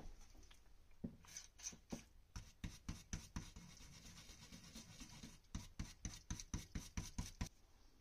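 Faint, quick scrubbing strokes of a hand tool against the Amiga 500 circuit board around freshly cleared through-holes, about three to four a second, in two runs with a lull in the middle.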